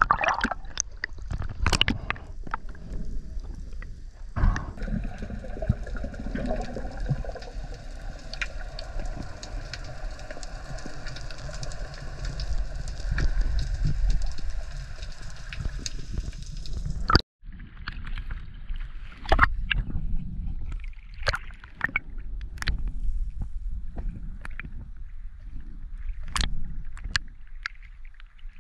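Water sloshing and gurgling around a camera in the sea. For the first half a steady whine at several pitches runs under it. After a sudden break there are scattered sharp clicks.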